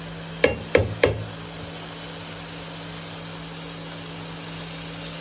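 Three quick knocks about a second in, each with a short ring, over the steady hum of an induction cooktop heating a frying pan.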